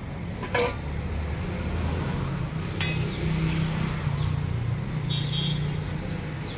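A metal ladle clinking twice against a steel pot of curry as it is put in and stirred, over a steady low rumble of road traffic.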